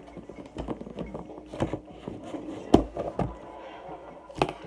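A handful of sharp taps and knocks from objects being handled, about five in all, the loudest just under three seconds in.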